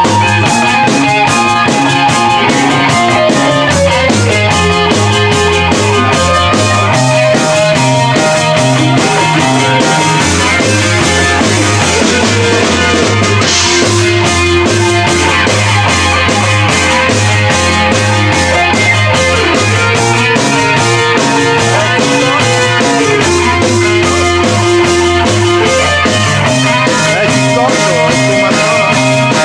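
Live rock band playing an instrumental passage: a drum kit keeps a steady beat under bass and electric guitars, while a lead guitar holds long notes that bend in pitch. A cymbal crash comes about halfway through.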